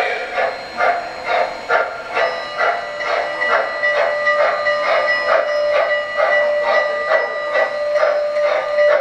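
An MTH RailKing model steam locomotive's electronic sound system playing steady steam chuffing, about three chuffs a second. A long, steady whistle tone joins about two seconds in and holds over the chuffing.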